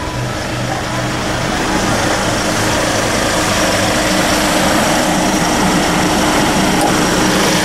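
Hyundai H-1's 2.5-litre 16-valve CRDi four-cylinder diesel idling steadily, growing a little louder over the first two seconds.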